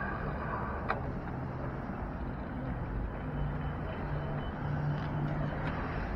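Road traffic passing at a city intersection, with a low engine hum from a vehicle in the second half. A single sharp click about a second in.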